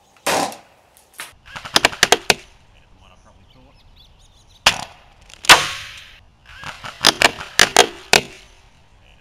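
Airsoft fire from an Aim Top G36C electric rifle with a King Arms M203 gas grenade launcher. Two runs of quick, sharp rifle shots are broken by two longer gas pops from the grenade launcher, the louder one about halfway through.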